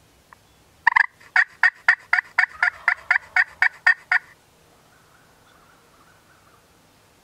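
Wild turkey yelping: a run of about fourteen evenly spaced, fairly loud calls, about four a second, lasting some three seconds.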